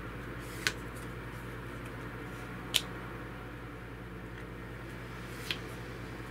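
Three short, sharp clicks about two to three seconds apart, the middle one the loudest, over a steady low hum.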